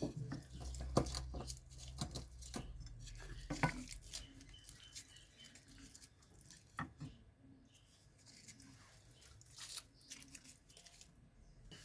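Foil wrapper of a stock cube being unwrapped and crumpled: faint, scattered crinkles and clicks, busiest in the first few seconds and thinning out after.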